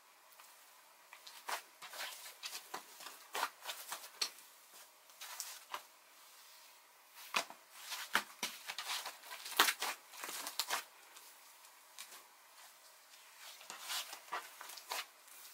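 Hands kneading and stretching a soft, fluffy clay-mixed dough slime, giving irregular clusters of sticky clicks and crackling pops, with short quiet gaps between them.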